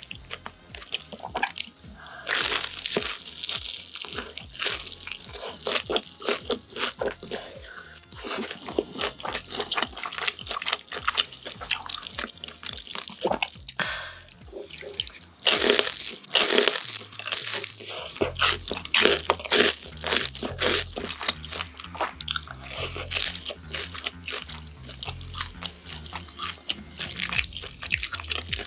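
Close-up crunching and chewing of crispy sweet and sour pork (tangsuyuk) with a glutinous-rice batter, bite after bite, in an irregular run of crackles and wet chews. The loudest crunches come about halfway through.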